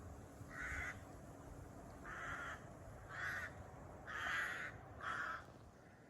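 A crow cawing five times, short harsh calls spaced about a second apart.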